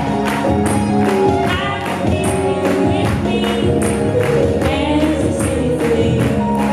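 Live folk-rock band playing with electric guitars, keyboard, bass and drums, over a steady percussion beat of about four hits a second, with voices singing along.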